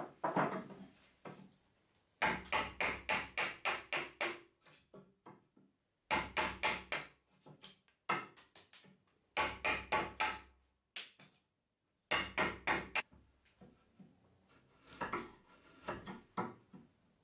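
Runs of rapid blows on a chisel driven into a pine beam, about five strikes a second in bursts of a second or two with short pauses between. Near the end come softer, scattered cuts as the chisel pares the joint by hand.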